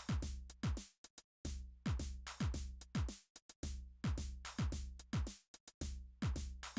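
Background electronic music with a drum-machine beat: deep kick drums that drop in pitch, sharp clicks and a low bass line, in a repeating pattern.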